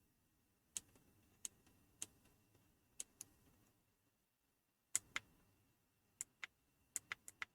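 Faint clicks of the Pinecil soldering iron's small tactile menu buttons being pressed, singly and in quick pairs at irregular gaps, coming faster near the end.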